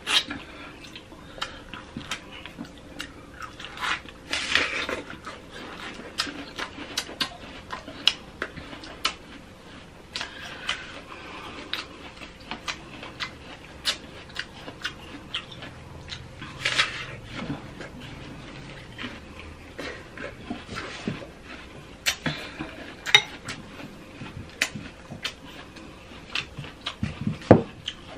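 Close-miked eating of fresh fruit: wet chewing and lip smacks with many sharp clicks, and a few louder, longer bursts of slurping and sucking at juicy orange and mango.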